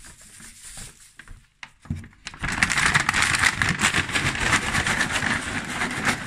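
Brown paper bag of chopped collard greens and seasoned salt being shaken hard, paper and leaves rustling and crackling loudly, to coat the greens. The shaking starts about two and a half seconds in, after a few light rustles of the bag being handled.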